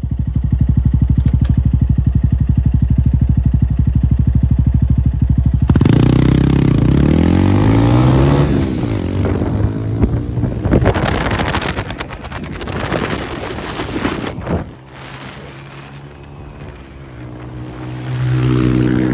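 Begode Master electric unicycle ridden hard from a standstill up to high speed. A steady pulsing hum for about the first six seconds gives way to tones gliding up and down, then a loud rush of wind noise over the microphone at speed, easing off before a hum returns near the end.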